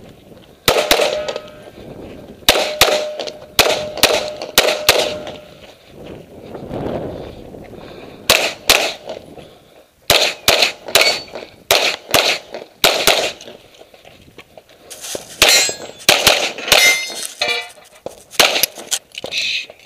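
Open Division race pistol with a compensator and red-dot sight fired in rapid strings of shots, a few at a time, with short pauses between strings. Some shots are followed by a brief metallic ring.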